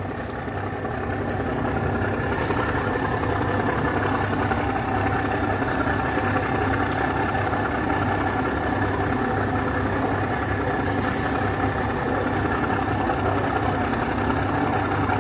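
Trawler's inboard diesel engine idling steadily, getting a little louder over the first couple of seconds.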